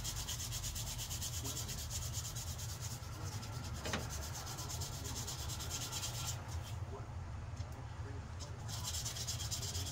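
Steady abrasive sanding of a handmade knife, the rasping high hiss easing off between about six and nine seconds in, over a steady low hum.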